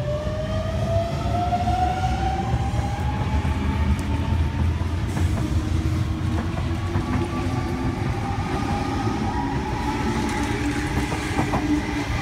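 Double-deck electric suburban train pulling out along the platform, its traction motors whining up in pitch over the first few seconds and then holding steady, over a steady rumble of wheels on the track.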